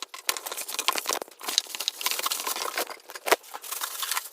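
Packaging being crinkled and torn as a box is unpacked, a dense crackling rustle with one sharper knock about three seconds in.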